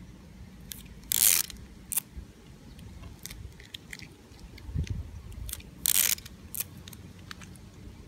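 Cellophane tape pulled off the roll of a wooden gear-driven woodpecker tape dispenser: two short rasping rips about five seconds apart, the first a little longer. Light wooden clicks come in between, from the woodpecker mechanism driven by the pulled tape.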